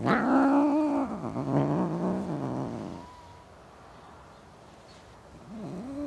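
Angry cats yowling at each other: a sudden loud, harsh yowl that sinks into a low, wavering growl and fades after about three seconds. A second yowl starts near the end.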